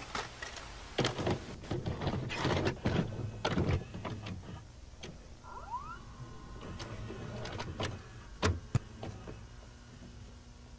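Videocassette recorder mechanism: a run of clunks and rattles as the tape loads, a short rising chirp partway through, then two sharp clicks in quick succession as it goes into play.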